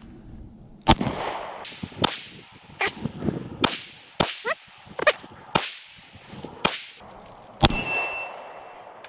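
Semi-automatic pistol fired nine times in slow succession, the shots roughly half a second to a second apart; a brief ringing follows the last shot.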